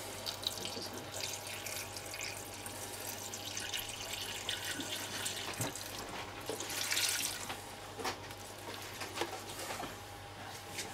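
Water being poured from a jug into a cast-iron Dutch oven of meat and vegetables, splashing and trickling, while a wooden spatula stirs the contents. The pour grows louder about seven seconds in, with a few light knocks along the way.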